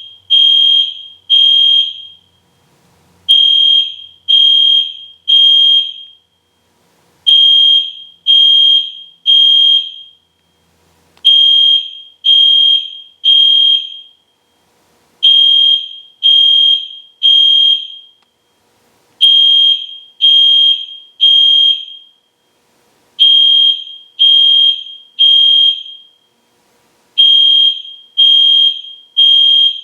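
EST Genesis fire alarm horn sounding loud in the temporal-three evacuation pattern: three short high-pitched blasts, then a pause, repeating about every four seconds.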